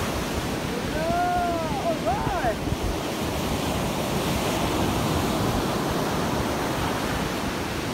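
Ocean surf breaking and washing up a sandy beach, with wind buffeting the microphone. About a second in, a couple of short cries that rise and fall in pitch.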